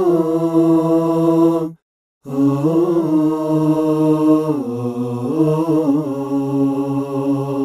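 Unmixed a cappella recording of a man singing long held, wordless notes, played back dry with no reverb or left-right panning. There is a short break about two seconds in, and the pitch steps down and back up around the fifth second.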